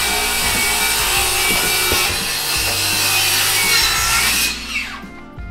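A power saw cutting wood steadily for about four and a half seconds, then its motor winding down with a falling pitch.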